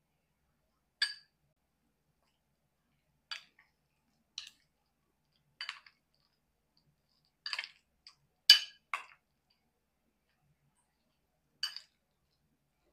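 Metal spoon and fork clinking against a glass mixing bowl as a salad is stirred and tossed. About nine short, sharp clinks come a second or two apart, with a tighter cluster about two-thirds through that holds the loudest one.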